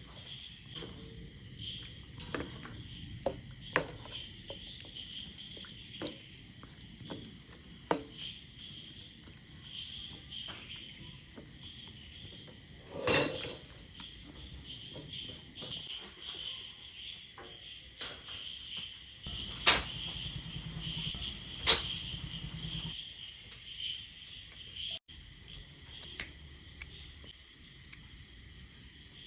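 Crickets chirring steadily at a high pitch, with scattered clicks and knocks over them; a louder clatter comes about halfway through and two sharp knocks a few seconds later.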